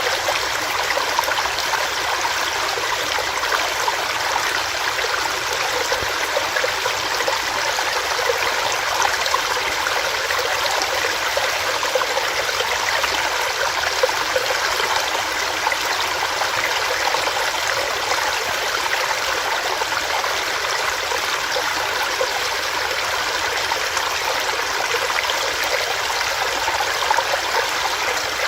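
Small rocky stream, water running and splashing over rocks in a steady rush.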